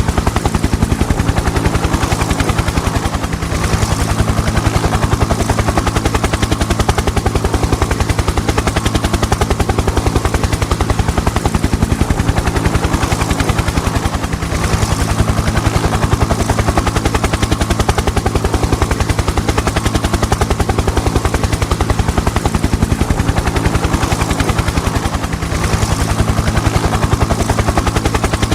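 Helicopter rotor running steadily: a rapid, even beat of the blades over a steady low engine hum. The level dips briefly three times, about every eleven seconds.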